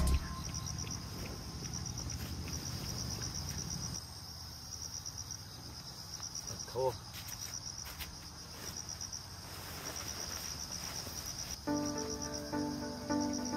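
Insects chirping in a steady, evenly pulsing high trill. Music starts up near the end.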